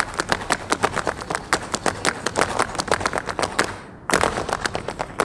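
Group of dancers clapping in a fast, even rhythm, about five or six claps a second, with a short break about four seconds in before the clapping resumes.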